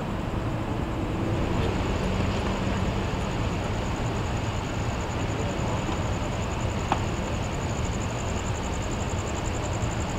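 Steady outdoor background of low vehicle rumble and traffic noise, with a high, evenly pulsing trill running through it and a faint click about seven seconds in.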